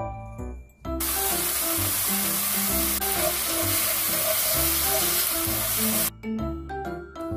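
Seasoned minced meat sizzling as it is stir-fried in a pan, a loud steady hiss that starts about a second in and cuts off suddenly about six seconds in. Light background music plays throughout.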